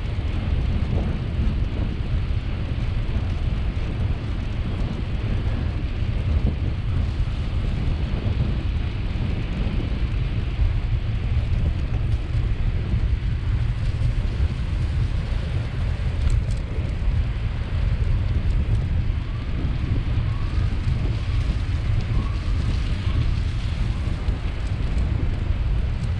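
Steady low rumble of wind buffeting the microphone of a camera riding along on a moving bicycle.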